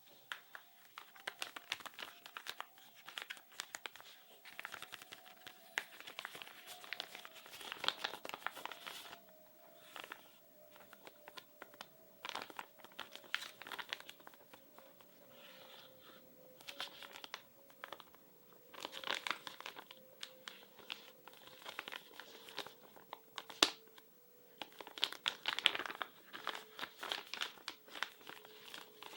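Close-up crinkling and crumpling of a crinkly material, handled in irregular bursts of crackles with short pauses between them and one sharper click about two-thirds of the way through. A faint steady tone slowly falls in pitch underneath.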